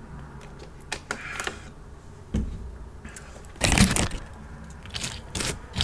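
Takeout packaging being handled and moved on a table: crinkles and clicks, a dull thump a little after two seconds in, and a louder burst of crinkling around four seconds in.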